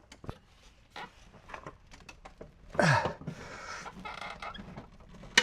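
Socket and cheater bar straining on a seized, heat-loosened engine mounting bolt under a lawn mower deck, with faint clicks and a brief squeal falling in pitch about three seconds in. Near the end comes a single sharp crack as the stuck bolt breaks free.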